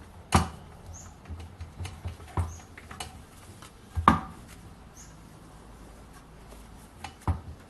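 Scattered knocks and clatter of hand tools and metal parts being handled, with a sharp knock just after the start and a louder one about four seconds in.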